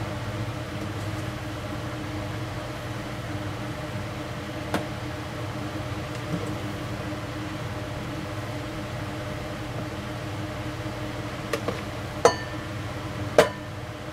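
A steady mechanical hum, with a metal ladle ticking once and then clinking twice near the end as it scoops and pours thick meringue batter. The clinks ring briefly, and the last is the loudest.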